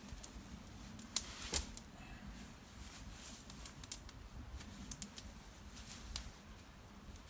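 Wood fire crackling, with irregular sharp pops and snaps, two louder ones a little over a second in, over a steady low rumble.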